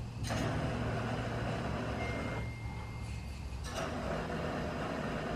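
Propane hand torch hissing with gas from its head, in two stretches: it stops about two seconds in and starts again a little over a second later.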